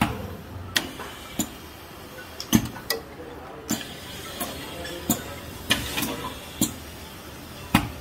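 Two-colour pad printing machine at work: a run of sharp mechanical clacks at irregular intervals, roughly one or two a second, over a steady low hum.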